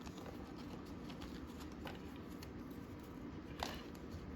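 Baseball trading cards handled and stacked by hand on a table: faint sliding and light tapping, with one sharper click about three and a half seconds in.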